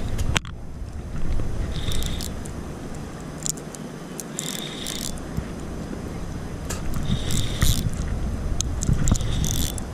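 Spinning reel ratcheting in several short bursts while a hooked largemouth bass is fought on the line.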